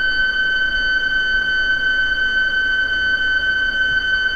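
PSK digital-mode signal from a Xiegu X5105 transmitting, picked up and played by a Yaesu FT-450 receiver's speaker as a steady tone of about 1.5 kHz with fainter overtones.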